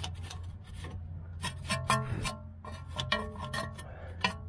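Background music with plucked strings and a steady beat, over a small wire brush scrubbing the threads of a car's tie rod end.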